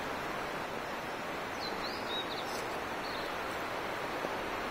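Steady rushing of river water, with a bird giving a few short, high, curving chirps about two seconds in.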